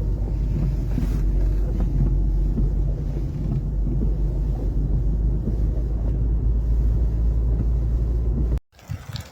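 Strong storm wind buffeting the microphone: a steady low rumble that cuts off abruptly near the end.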